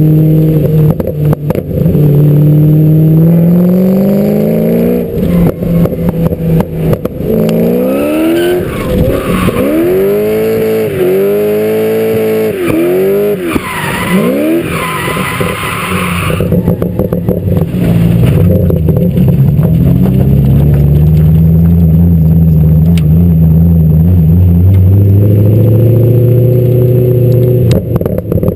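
BMW drift car's engine, heard from a camera on the car's flank: it runs and then revs hard through a drift, its pitch swinging up and down several times in quick succession, with tyres squealing near the middle. Afterwards it settles into a steadier, lower engine note as the car rolls slowly on.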